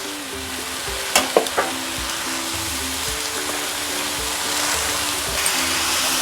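Chicken pieces sizzling in hot oil and onion-tomato masala in a cooking pan, with a few sharp utensil clinks a little over a second in. The sizzle grows louder near the end.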